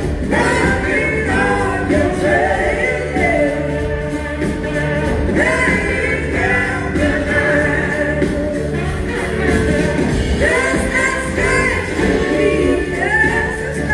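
Live blues-rock band playing loud, with singing over drums, bass, electric guitar, keyboards and a horn section, heard from the audience in a theatre.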